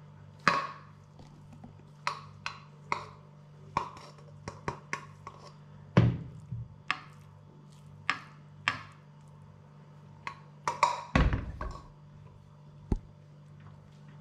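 A spoon clinking and scraping against a plate of food in irregular sharp taps, some ringing briefly, with two heavier knocks about six and eleven seconds in. A faint steady low hum runs underneath.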